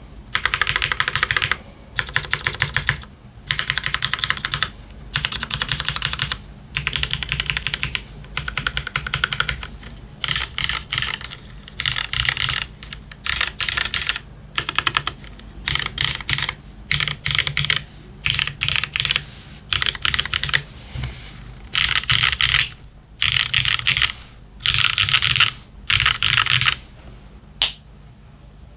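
Typing on a Hex 50FE mechanical keyboard, plateless with an O-ring mount, its lubed pre-retooled Cherry MX Black linear switches and DCS PBT keycaps clacking in quick runs of keystrokes, each a second or two long, with short pauses between.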